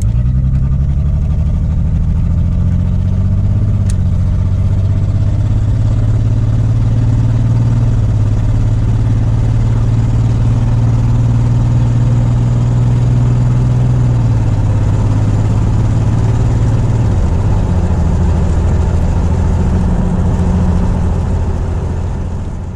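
Straight-piped exhaust of a 1989 Jeep Cherokee, heard from inside the cab while driving. The engine note rises as it accelerates over the first several seconds and then holds steady. It drops about two-thirds of the way through, dips again a few seconds later, and fades near the end.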